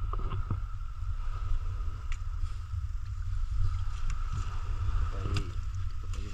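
Steady low rumble aboard a wooden fishing boat, with a faint steady whine above it. A few light knocks and wet sounds come from fish being handled in the water of the hold.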